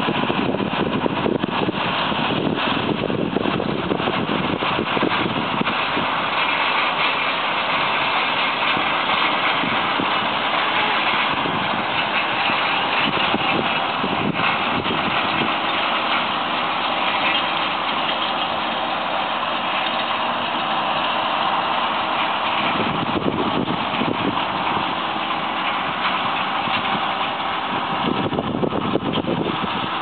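John Deere 7530 tractor running under load as it pulls a McHale Fusion 2 round baler-wrapper through hay, the engine and baler machinery making a steady drone.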